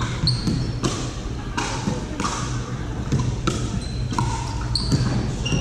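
Pickleball paddles hitting a plastic ball in a quick volley exchange: about eight sharp pops, roughly one every two-thirds of a second, over a steady low hum.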